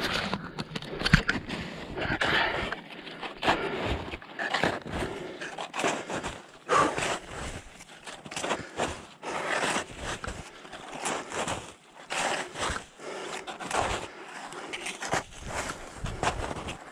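A hiker's footsteps on a steep mountain trail: an irregular run of short scraping steps, about two a second.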